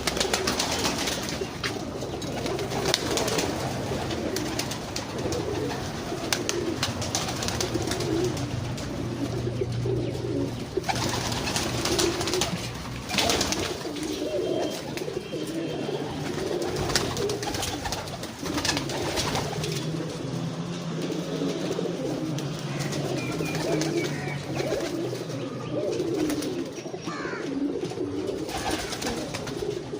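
A flock of domestic pigeons cooing continuously, many low, wavering coos overlapping one another. Scattered sharp clicks and rustles come and go among them.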